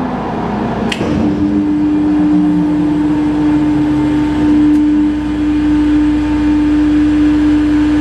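Drive of a CMC triple roller bar mixer running with a steady electric hum as its stainless steel trough tilts from open to closed; it starts with a click about a second in.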